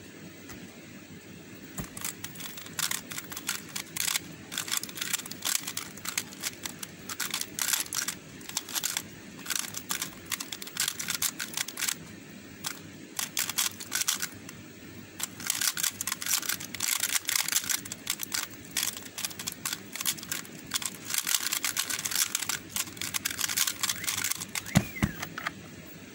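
Square-1 puzzle being solved at speed: rapid, irregular plastic clicking and clacking as its layers are turned and sliced, starting about two seconds in. It ends about twenty-five seconds in with one sharp loud hit as the hands come down on the speedcubing timer to stop it.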